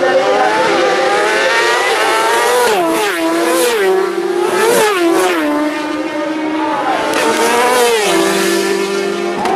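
Several racing motorcycles' engines running hard at a road-race corner, their pitch dropping and jumping sharply about three and five seconds in as the riders brake and change gear, then rising as they pull away. Near the end one bike passes close.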